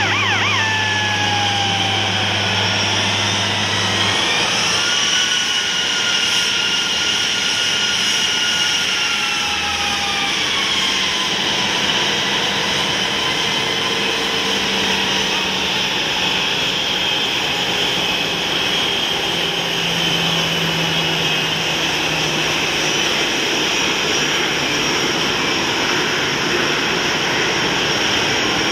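Jet engines of a taxiing Airbus A320-family airliner: a steady rushing whine whose tones slide down at first, rise about four to five seconds in, then fall again and sink slowly as the plane rolls past. A low steady drone underneath stops about four seconds in.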